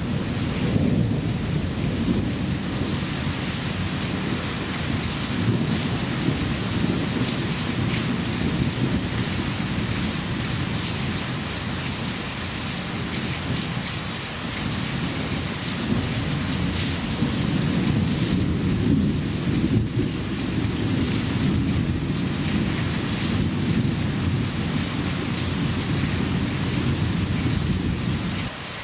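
Thunder rumbling almost without a break over steady rain. The rumble eases a little about halfway, swells again, and cuts off suddenly near the end, leaving the rain.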